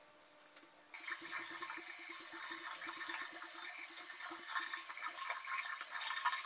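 Water running from a tap into a sink, starting suddenly about a second in and running steadily, as a black-sugar face scrub is rinsed off.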